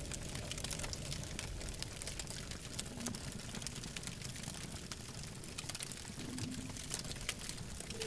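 Campfire crackling: frequent small sharp snaps and pops over a steady hiss and low rumble.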